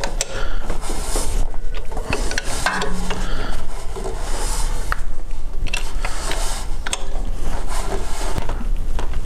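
12-valve Cummins diesel being rolled over by hand with a wrench on the alternator pulley, turning the engine through the belt: scattered metallic clicks and rubbing from the tool and the slowly turning engine.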